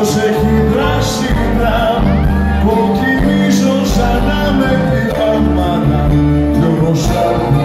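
Live band playing a song, with a male voice singing over it.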